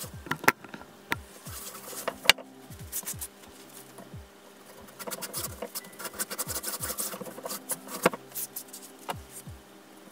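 Background music with a steady beat, over which cotton fabric tubes rustle and slide as they are pushed down a wooden flip stick to turn them right side out, with a few sharp taps, the loudest about two seconds in and again near eight seconds.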